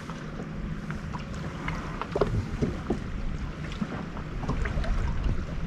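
Steady low rumble of wind and water around a small fishing boat, with a few faint clicks and knocks scattered through it.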